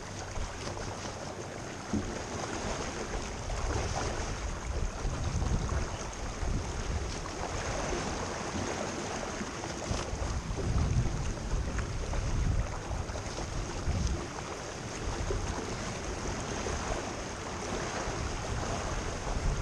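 Wind buffeting the microphone and water rushing along the hull of a sailboat under way, rising and falling in gusts.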